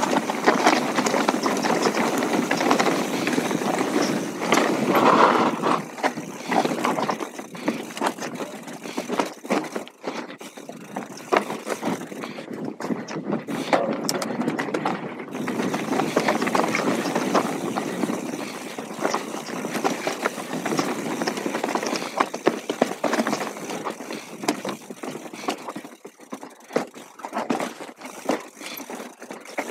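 Full-suspension mountain bike ridden over a rocky trail: tyres crunching and knocking on stones, with the bike clattering over each bump in a dense, uneven rattle that eases briefly about halfway through.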